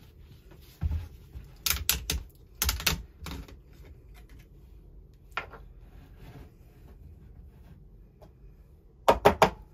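Sharp plastic clicks and knocks from handling a plastic bottle of chain oil: its screw cap coming off and the bottle and cap set down on a wooden floor, in several short clusters, the loudest a quick run of clicks near the end.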